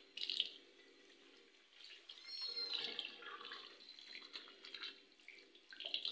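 Water from a washbasin tap running and splashing as a small kitten is washed by hand in the basin, with a short high squeak about two seconds in.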